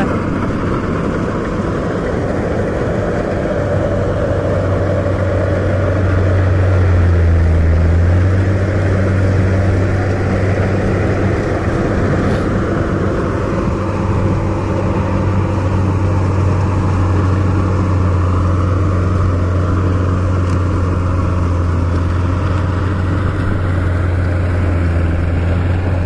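Kubota DC70 rice combine harvester running steadily while cutting rice: a constant diesel engine drone with the rush of its cutting and threshing machinery.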